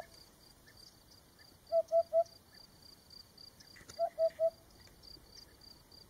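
Eurasian hoopoe singing its soft, low hooting 'oop-oop-oop' song: two three-note phrases about two seconds apart. Under it runs a steady faint high ticking, about four ticks a second.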